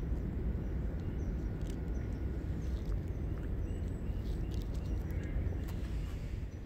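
A Shih Tzu gnawing a thin twig held between its front paws, with faint scattered crunches and clicks, over a steady low outdoor rumble.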